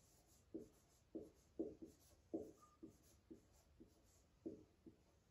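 Marker pen writing on a whiteboard: a series of short, faint strokes, about two a second.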